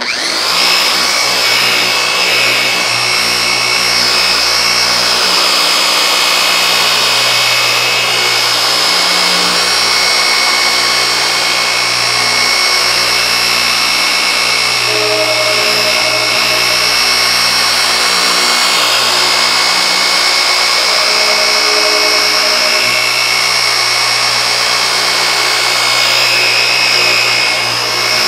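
Griot's Garage G21 dual-action polisher switched on and running steadily at about speed 4 to 5, working correcting cream on a correcting pad over car paint. It makes an even motor whine with a low hum.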